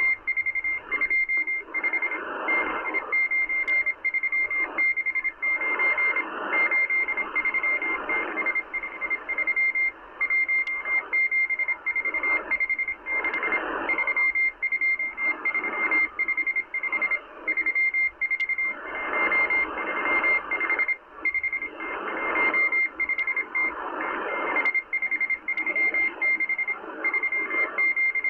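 M12 numbers station's Morse code on 14451 kHz, heard through a Kenwood R-1000 shortwave receiver. A steady high beep is keyed on and off in quick dots and dashes over shortwave hiss that swells and fades every second or two, with occasional static clicks.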